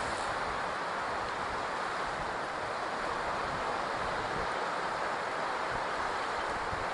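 Steady rushing of ocean surf mixed with wind, an even wash with no distinct breaks.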